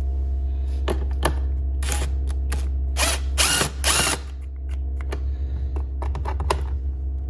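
Cordless drill driver with a socket spinning out the ATV footrest bolts in several short bursts, the loudest about three to four seconds in. A steady low hum runs underneath.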